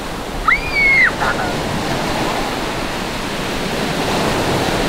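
Small waves breaking and washing up the beach as a steady surf noise. About half a second in, a short high-pitched squeal that rises, holds and falls.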